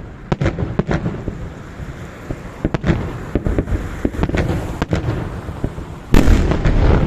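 Salute fireworks going off: many sharp bangs at irregular intervals over a steady background rumble of explosions, with the loudest stretch, a dense volley of blasts, about six seconds in.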